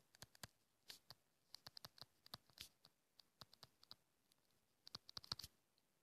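Faint clicks and scratches of a stylus tip on a tablet screen during handwriting, coming in short clusters of quick taps.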